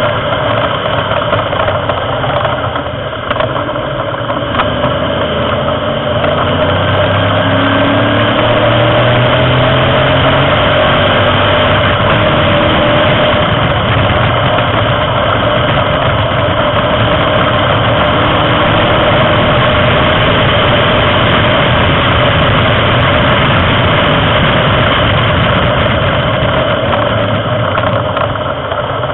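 Racing car engine heard from on board, running hard at speed; the engine note drops about three seconds in, then the revs climb again and hold loud and steady.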